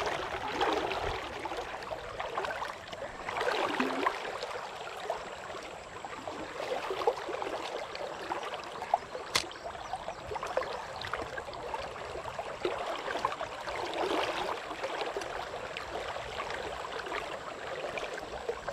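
River rapids rushing and gurgling close by, the noise swelling and easing, with a single sharp click about nine seconds in.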